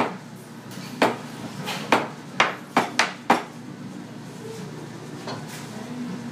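Stainless steel milk pitcher knocked on the counter seven times, the knocks coming closer together, to settle the bubbles in freshly steamed milk before a latte-art pour.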